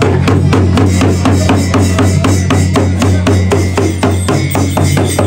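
Music with a fast, even drumbeat of about five strokes a second over a steady low bass note, which changes pitch about four seconds in.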